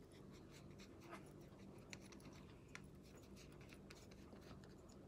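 Near silence: room tone with a low hum and a few faint light ticks and scratches.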